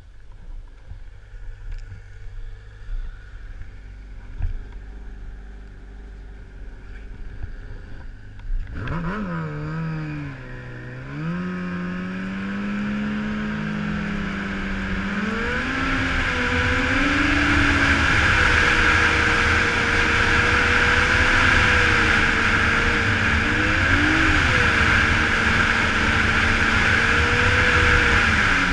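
Snowmobile engine idling low, then throttled up about nine seconds in. Its pitch rises and falls as the sled pulls away, and it then runs loud and steady at trail speed, with a rushing hiss building as it goes faster.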